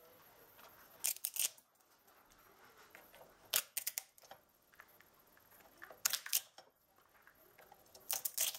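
Homemade spring-loaded lever walnut cracker of welded steel cracking walnuts one after another: four quick clusters of sharp cracks and clicks, about two and a half seconds apart.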